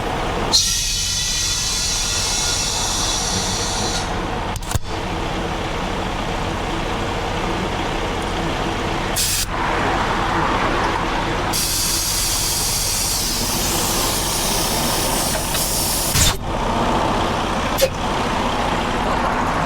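Compressed air hissing in long bursts from a Cheetah bead-seater tank and air line, seating and airing up a semi truck's steer tire, over steady passing highway traffic. Two short sharp knocks come near the end.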